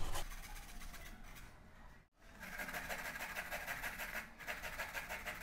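A red onion being rubbed up and down a stainless-steel box grater: a quick, even run of scraping strokes, with a short break about two seconds in.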